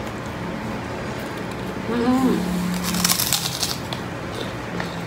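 A short hummed "mmm", then a crunchy bite into crisp food about three seconds in, with a few crackling chews after it.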